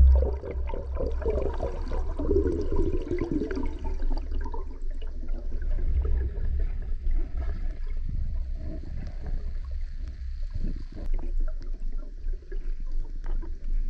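River water gurgling and churning close to the microphone over a steady low rumble of current, busiest in the first few seconds.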